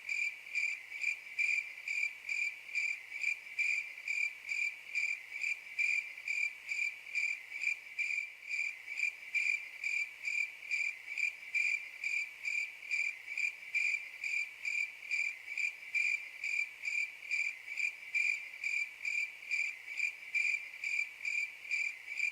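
Crickets chirping in a steady, even rhythm, a little over two high chirps a second: the stock 'crickets' meme sound effect that stands for an awkward silence.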